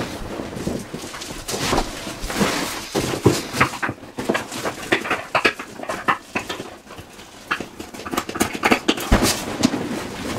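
Inflatable vinyl boat being handled and shifted about, its plastic skin rubbing and squeaking in short irregular strokes.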